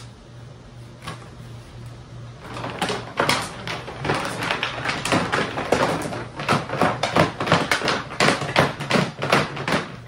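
Loose metal nuts rattling and knocking around inside a Polaris Trans Sport snowmobile's plastic fuel tank as it is tipped and shaken, scouring loose the old deposits soaking in kerosene in the bottom. The quick, irregular clatter starts about two and a half seconds in and keeps up.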